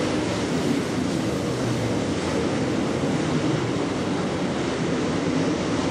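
A field of dirt late model race cars running on the track, a steady blend of many V8 engines.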